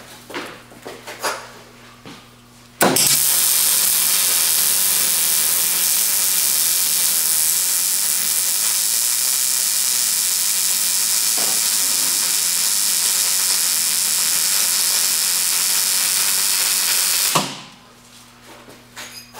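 Wire-feed welder arc sizzling steadily through one long continuous weld on the steel rack frame. It starts suddenly about three seconds in and cuts off abruptly a couple of seconds before the end. A few light clicks of handling come before it.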